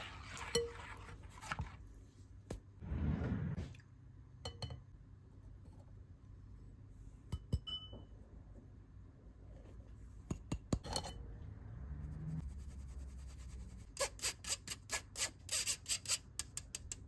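A metal mesh sieve and utensils clinking against a glass mixing bowl, with scattered taps and a short scrape. Near the end comes a quick run of light taps, about four a second, as the sieve is tapped to sift dry ingredients into the bowl.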